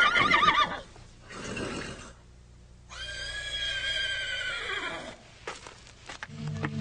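Horse whinnying: a quavering whinny dies away within the first second, a short breathy sound follows, then a second, longer whinny holds for about two seconds and drops in pitch as it ends. Music begins just before the end.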